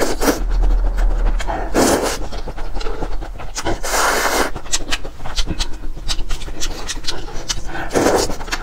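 Noodles being slurped from a bowl of soup: four long, airy sucking slurps, the longest about halfway, with wet chewing and lip-smacking clicks between them.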